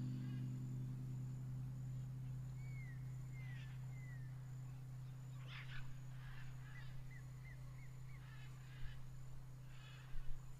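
Jungle soundscape of birds calling: a few short falling whistles, then a run of quick chirps and brief buzzy calls. Under them a low, steady tone slowly fades away.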